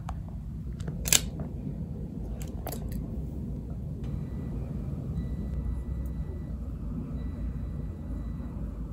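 Steady low room hum with one sharp click about a second in and a couple of lighter clicks near three seconds, from small objects being handled. A faint, thin high whine comes and goes in the second half.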